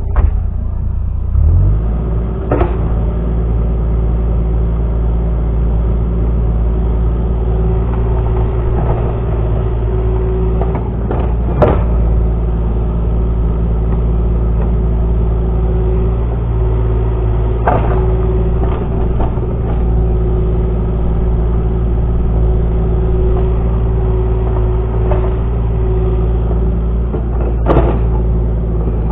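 Excavator engine running steadily under work with a continuous whine, and four sharp clanks spread through.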